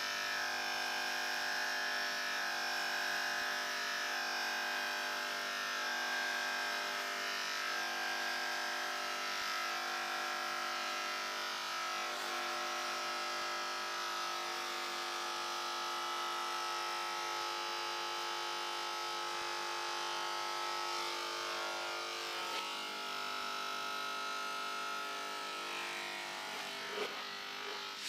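Corded electric hair clippers buzzing steadily while cutting hair. The buzz cuts off suddenly near the end.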